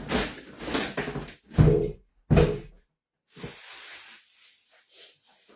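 Kitchen clatter: knocks and bumps of cupboard doors and things being handled, with two heavy thumps about a second and a half and two seconds in.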